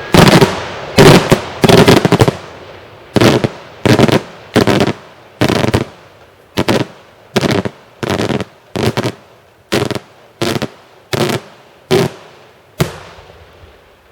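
A daytime fireworks display: a rapid series of about eighteen loud bangs, roughly one every 0.7 seconds and bunched closer together in the first two seconds, each with a short echoing tail.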